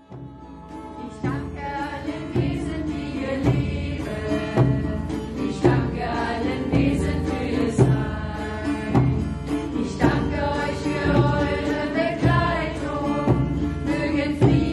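A group of voices singing a mantra-style chant to acoustic guitar, with a frame drum beating steadily about once a second.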